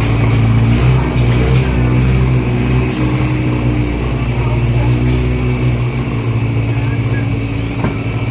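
Engine of a water-hyacinth chopping boat running steadily, with a loud low hum.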